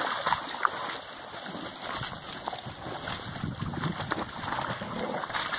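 Water splashing and sloshing irregularly as dogs wade and swim through a shallow pond.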